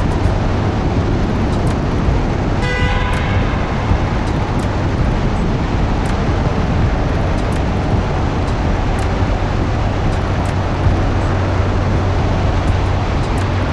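Steady loud rumble of road and wind noise from a vehicle driving through a road tunnel, with a short horn honk about three seconds in.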